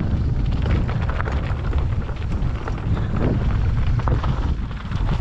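Mountain bike riding fast down a rough dirt trail: a steady low rumble with wind buffeting the microphone, and many small knocks and rattles from the tyres and bike going over rough ground.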